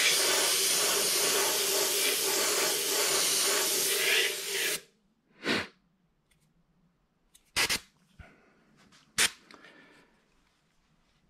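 Airbrush spraying paint in a steady hiss for about five seconds, then cut off suddenly as the trigger is released; a few short bursts follow.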